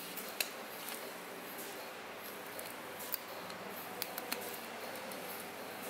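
Utility knife blade slitting the plastic shrink-wrap along the edge of a cardboard box: faint scraping with a few sharp little clicks and crinkles scattered through it.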